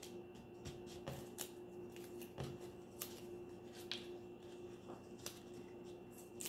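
Faint, scattered light clicks and paper rustles as small paper squares are handled and pressed onto a paper plate, over a low steady hum.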